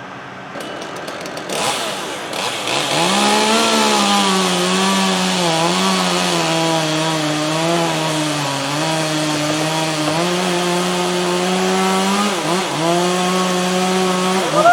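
Chainsaw cutting through pine, held at high revs; its pitch sags and recovers as the bar works through the wood, with a short drop near the end.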